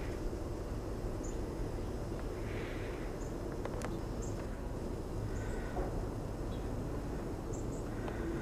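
Outdoor ambience: a steady low rumble, with short high chirps scattered about once a second.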